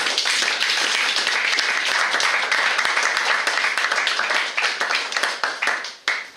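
Audience applauding: steady applause that thins to a few scattered claps near the end and stops.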